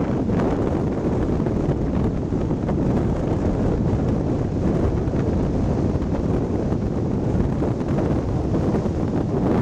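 Strong wind buffeting the microphone, a steady low rumble, over the continuous rush of heavy surf breaking on rocks.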